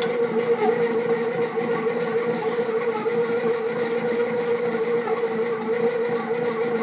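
Bread machine running with a steady whining hum, one held tone with fainter overtones. It is the odd noise the owner traces to the bottom of the bread pan and tries to quiet with oil, here in a calmer spell.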